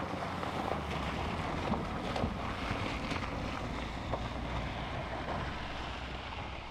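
A car driving away over a wet road, its tyres hissing and splashing through puddles over a low engine rumble, fading out near the end as it recedes.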